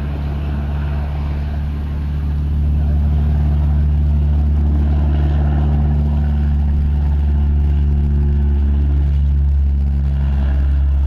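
Engine droning steadily with a low hum, getting louder about two and a half seconds in.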